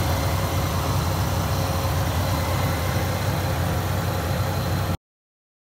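Dodge Viper 8.3-liter V10 idling steadily at the open engine bay, a low even rumble. The sound cuts off suddenly about five seconds in.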